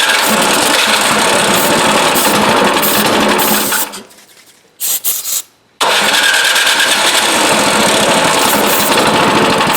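Craftsman 26-inch snowblower engine running on starter fluid fed into its carburetor. It runs for about four seconds and dies, gives a short sputter about five seconds in, then catches again and keeps running. It runs only on fed fuel, the sign of a gummed-up carburetor.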